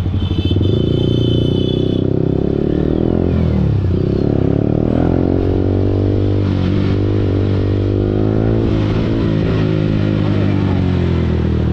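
Yamaha R15 V4's single-cylinder engine through an Akrapovic full-system exhaust, accelerating hard: the pitch climbs, drops at a gear change about four seconds in, and climbs again.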